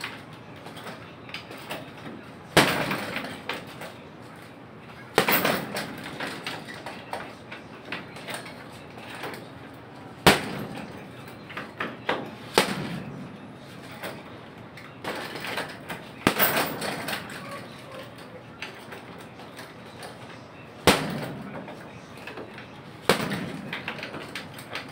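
Boxing gloves punching a hanging heavy bag: about seven hard, sharp hits spread irregularly a few seconds apart, with lighter blows in between.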